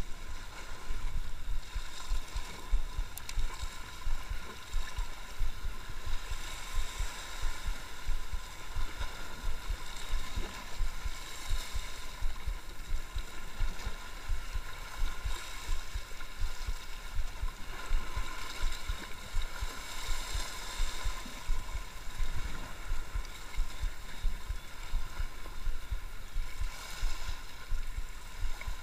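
Sea waves washing against the rocks, the hiss swelling and easing every several seconds, with wind buffeting the microphone in a constant low rumble.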